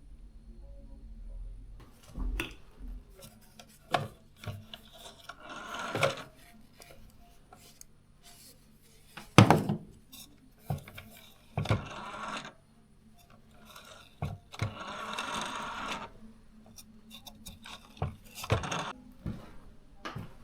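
Wooden boards being knocked and dragged: scattered knocks of wood on wood, the loudest about nine seconds in, with two longer stretches of wood scraping on wood.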